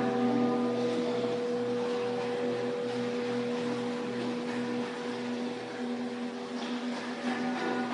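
Tibetan singing bowls ringing on in long sustained tones at several pitches together, with a lower hum that pulses about twice a second.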